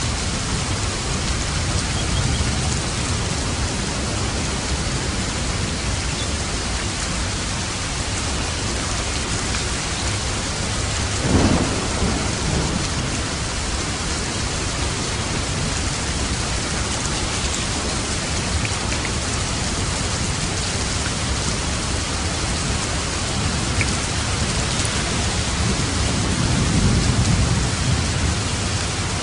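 Steady heavy rain falling on a roof, with a sharp thunderclap about a third of the way in and a low rolling rumble of thunder near the end.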